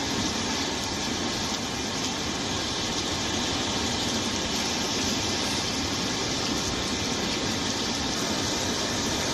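Muddy river in full flood: a steady, loud rushing of churning water that does not let up.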